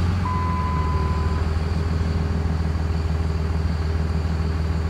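5.9 Cummins common-rail diesel of a 2005 Dodge Ram idling steadily just after start-up, on a custom 12-valve tune: 800 rpm idle with a single injection event and no pilot injection, so it sounds like an older 12-valve Cummins. A brief steady beep for about a second near the start.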